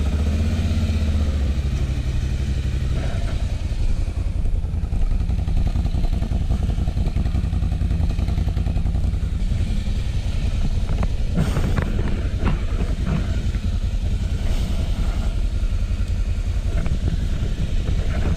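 TGB Blade 1000 ATV's V-twin engine idling steadily just after being started, its idle easing down in the first couple of seconds. A few light knocks or clicks come about two-thirds of the way through.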